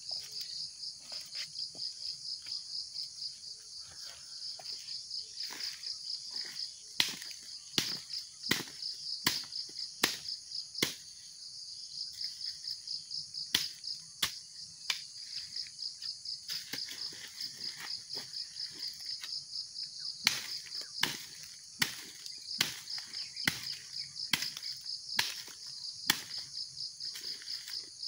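Irregular sharp strikes of a hooked blade beating overripe oil palm fruit bunches to knock the loose fruitlets off, some strikes in quick pairs. A steady, pulsing high insect chorus runs underneath.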